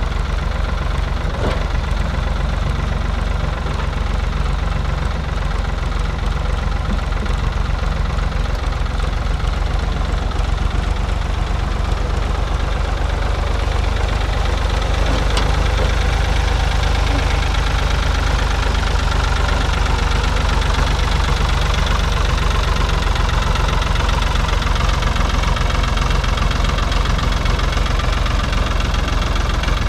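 1970 Ford 3000 tractor's three-cylinder diesel engine running steadily.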